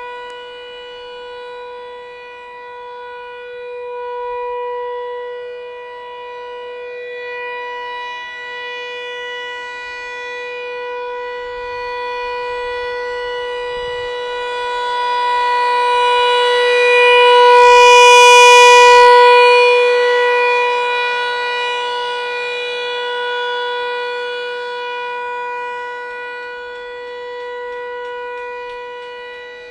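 American Signal T-128 rotating civil defense siren sounding a steady single-pitch wail for a test. Its loudness swells and fades slowly as the rotating horn sweeps around, loudest a little past the middle.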